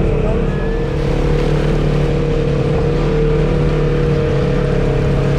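Polaris RZR Turbo XP side-by-side's engine running at a fairly steady speed while under way, a held engine tone with only slight rises and falls in pitch.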